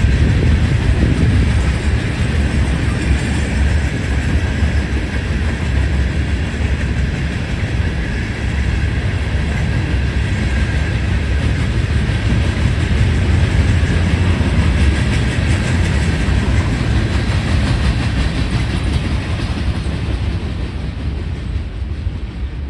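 Cars of a Herzog ballast train rolling past: a loud, steady rumble of steel wheels on the rails with some clickety-clack, dying away near the end as the train clears.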